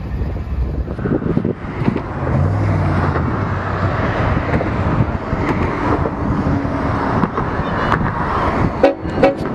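Diesel freight locomotives running and rolling slowly through a rail yard: steady engine rumble and wheel noise, with short steady tones about two and a half seconds in. A few sharp knocks come near the end.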